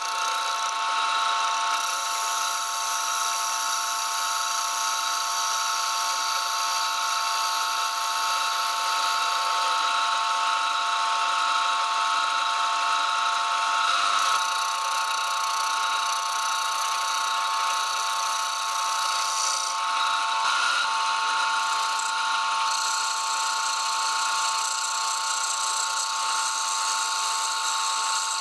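Small metal lathe running, its motor and gearing giving a steady multi-tone whine over a hiss as the chuck spins a glued bamboo disc.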